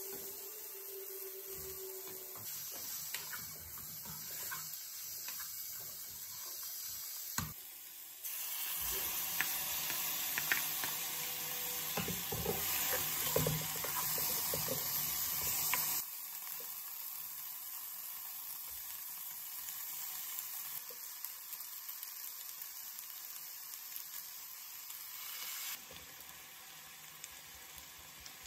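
Food sizzling in a non-stick frying pan while it is stir-fried: a steady hiss with a black spatula scraping and tapping against the pan. It gets suddenly louder about a third of the way in and drops back suddenly just past halfway.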